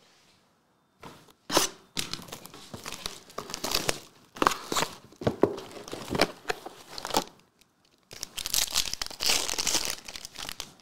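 Foil trading-card pack wrappers being torn open and crinkled, a run of sharp crackling rips starting about a second in, a short pause, then more steady crinkling near the end.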